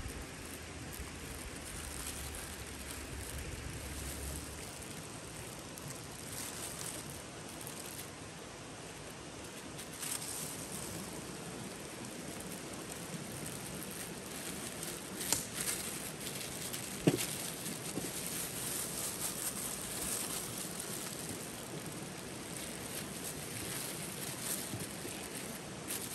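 Steady rushing of a river, with plastic sheeting crinkling and rustling as a minced-chicken log is rolled up in it; a few sharp clicks and crackles stand out in the second half.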